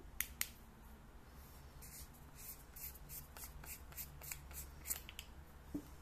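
Two sharp clicks of the Convoy M26C flashlight's tail switch, then a run of light quick ticks, about three a second, from the tail cap's threads as it is unscrewed from the body. A soft knock near the end.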